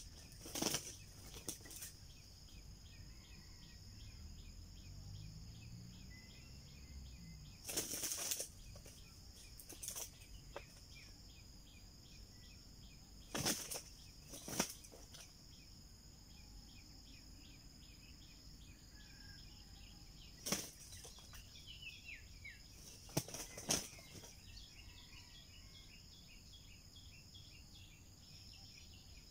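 Red junglefowl flapping their wings in short bursts every few seconds, over a steady high drone of insects.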